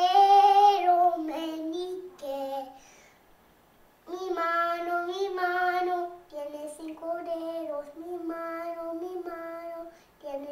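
A young boy singing a children's song, in sung phrases with a break of about a second a few seconds in.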